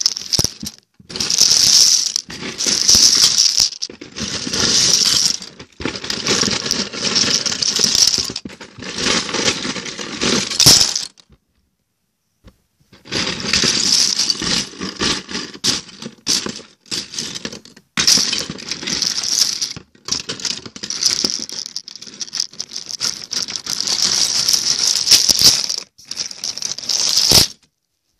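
Handling noise: the recording device being rubbed and jostled against its microphone, a loud scraping rustle in bursts, with a silent stretch of a second or so near the middle.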